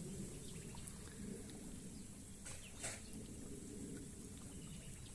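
Faint outdoor ambience: scattered bird chirps over a low rumble, with one brief sharper sound about three seconds in.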